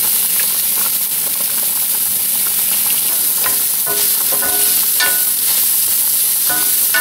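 Sliced onions sizzling steadily in hot oil in a cast iron skillet. From about halfway through they are stirred with a wooden spoon, which makes several short scrapes against the pan.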